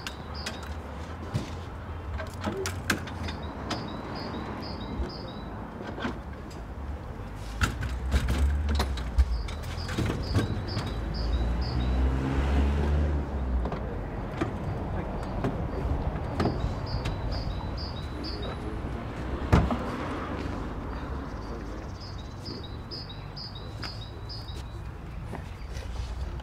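Outdoor traffic and birdsong. A vehicle engine rumbles throughout and grows louder for a few seconds in the middle, rising in pitch. A bird repeats a quick run of five or six high chirps every few seconds, and there is a single sharp thump about two-thirds of the way through.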